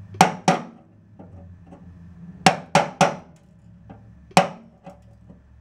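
Hammer striking a steel bar held against the underside of a VW Type 2 bus's welded-in battery tray: six sharp metallic blows in groups of two, three and one. It is tapping the tray's sheet metal up flush to close a gap of about an eighth of an inch before seam sealer goes on.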